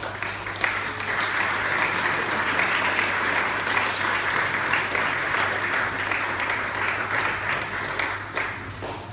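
Audience applauding: many hands clapping together, swelling about half a second in and dying away near the end.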